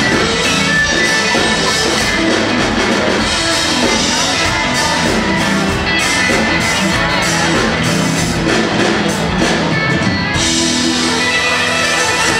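Live country-rock band playing amplified music with electric guitar, bass and a drum kit. About ten seconds in the drum hits stop and sustained notes ring on.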